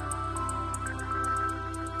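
Intro background music: soft, steady synth-style music with sustained tones and a light, regular high ticking beat.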